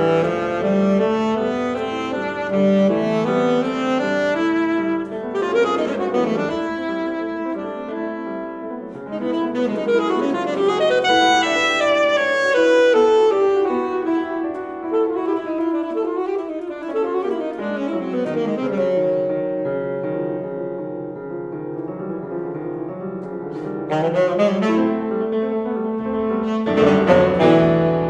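Saxophone and piano playing a contemporary classical duo, with quick runs that rise and fall over piano chords.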